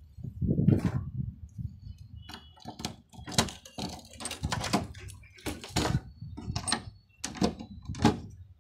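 Sharp metal clicks and clanks as an old iron padlock is worked open and taken off the hasp of a wooden pigeon-coop door, then the door is pulled open. A heavier handling bump comes about a second in.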